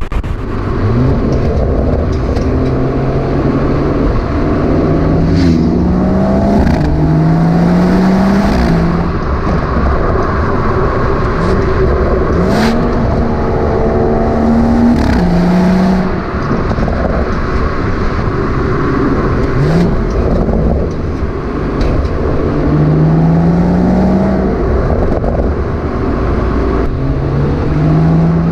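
BMW M140i's 3.0-litre turbocharged straight-six under acceleration in several pulls, the engine note rising and then dropping back each time.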